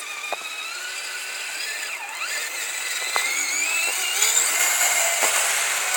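Electric motor and drivetrain of a Kyosho Blizzard radio-controlled snowcat whining under throttle, the pitch climbing and the sound growing louder over the middle of the stretch, with a few small clicks.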